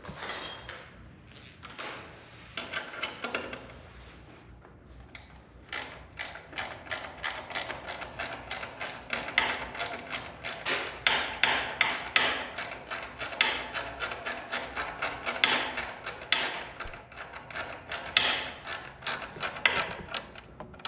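Rapid, even mechanical clicking, about four clicks a second, starting about six seconds in after a few scattered knocks and handling sounds, like a ratchet being worked during garage door opener repair.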